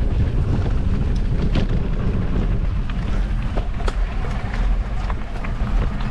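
Wind rumbling on the microphone of a camera riding on a mountain bike, along with the rolling noise of the bike on a dirt track. Scattered sharp clicks come through, several between about one and five and a half seconds in.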